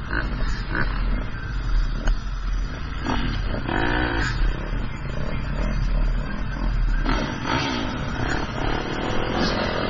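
GasGas 125 two-stroke motocross bike engine revving up and down as it is ridden, over a heavy low rumble.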